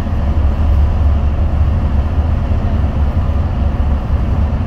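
Steady low rumble of tyre and engine noise heard inside a vehicle's cabin at motorway speed.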